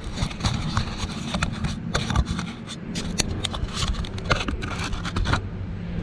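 Irregular clicks, knocks and scrapes of hard parts being handled, stopping about five seconds in, over a steady low hum.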